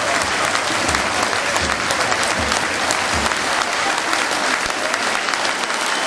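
Football crowd clapping and applauding a goal, a steady patter of many hands. A few short low thuds sound through the first half.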